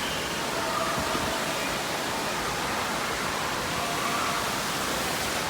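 Steady rushing of water throughout an indoor waterpark, with faint distant voices mixed into the din.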